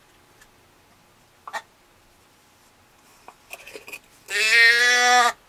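A hand-held deer call sounded close by: one drawn-out, steady bleat lasting about a second near the end, used to call to passing deer. Before it come a few faint clicks and rustles and one short high blip.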